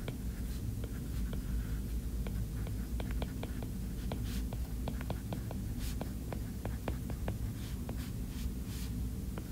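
A stylus ticking and tapping on a tablet screen during handwriting: an irregular run of small, sharp ticks over a steady low hum.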